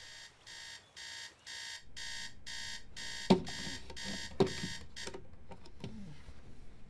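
Digital alarm clock beeping over and over, faint at first, then louder and quicker. Two sharp knocks as a hand hits the clock, and the beeping stops about five seconds in.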